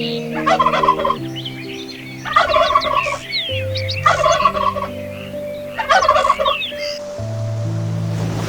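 A domestic fowl calling in four short, rattling bursts of about a second each, with gobble-like calls, over soft sustained background music.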